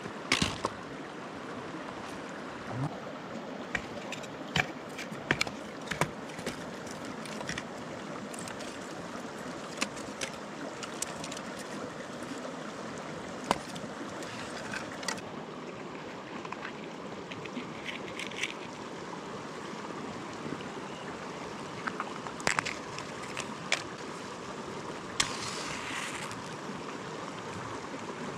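A river flowing steadily, with scattered sharp clicks and knocks of close handling throughout.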